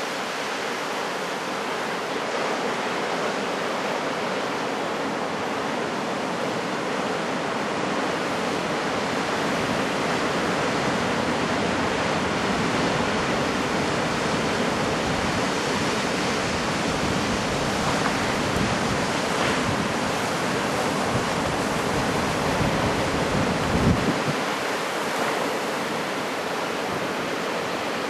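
Steady wash of heavy typhoon surf breaking on the coast, mixed with wind blowing over the microphone, which gives a short low gust thump about 24 seconds in.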